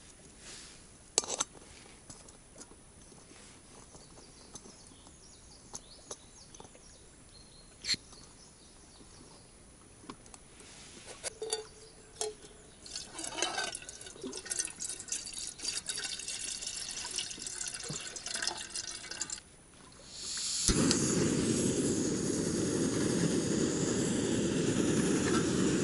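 A few metal clicks from a folding camping gas stove on a gas canister. Then water pours from a plastic bottle into a metal pot. About twenty seconds in, a click as the burner lights, and from then on the stove's flame gives a loud, steady hiss under the pot.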